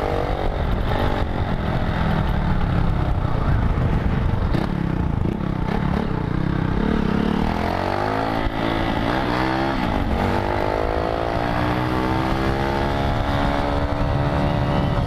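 Motorcycle engine breathing through a USA Racing aftermarket exhaust, revving up and down as the bike is ridden, its pitch rising and falling several times. Wind rumble over the microphone runs underneath.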